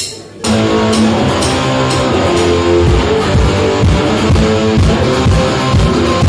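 A click at the start ends a count-in, then about half a second in a live rock band comes in loud: electric guitar and bass playing together with drums.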